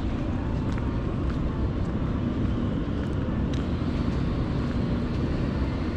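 A car driving: a steady low rumble of engine and road noise.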